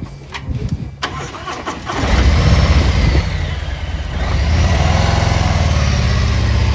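Harley-Davidson CVO Tri Glide's V-twin engine starting: a few clicks, then the engine catches about two seconds in and settles into a steady, pulsing idle.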